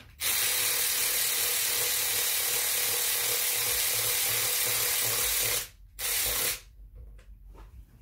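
A loud, steady hiss lasting about five seconds, stopping, then coming back as a second short burst about half a second later.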